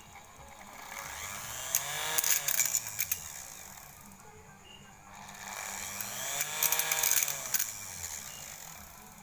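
Second-hand sewing-machine motor driving a homemade mini grinder, sped up and slowed down twice so its whine rises then falls, with sharp crackling clicks at top speed. The motor runs somewhat rough because it is a used part.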